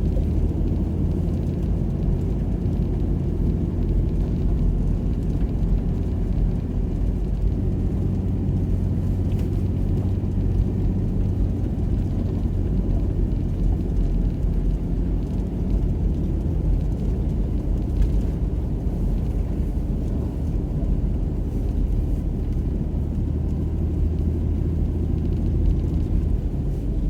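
Steady low rumble of a car driving on a snow-covered road, heard from inside the cabin: engine hum and tyre noise with no changes in speed.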